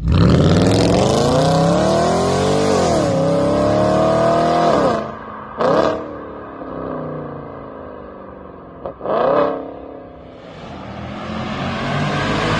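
Audi S5's 4.2-litre V8 with a downpipe exhaust accelerating hard from rest. Its note climbs, drops at a gear change about three seconds in, climbs again and fades away. Two short loud bursts follow, and near the end the V8 grows louder again as the car approaches.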